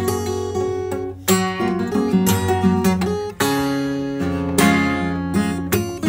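Acoustic guitar playing, with strummed chords struck about three times and picked notes ringing between them.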